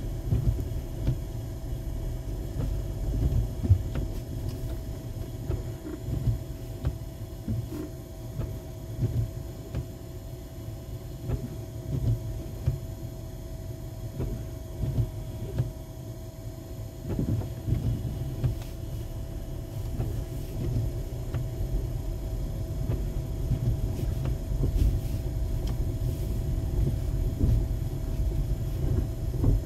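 Car driving slowly over a snow-covered road, heard from inside the cabin: an uneven low rumble of tyres and engine, with a faint steady high tone above it.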